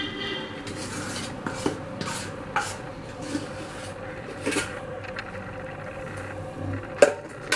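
Thick fudge being scraped out of a stainless steel pan into a glass dish: a run of short rasping scrapes of a spoon against the pan, with a sharp clink about seven seconds in.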